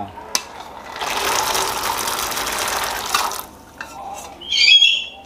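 Soaked peanuts poured into a pot of water, a splashing rush lasting about two and a half seconds. Near the end a bird squawks once, loudly.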